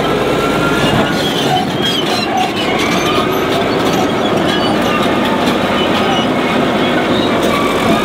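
Caterpillar D9H crawler bulldozer travelling on its steel tracks: continuous clanking of the track links with scattered high squeals, over the steady run of its diesel engine.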